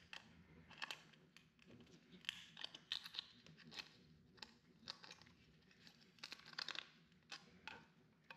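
Faint, irregular run of short scrapes and clicks as a small screwdriver pries a thin metal shield off a circuit board, bending the shield up as it comes loose.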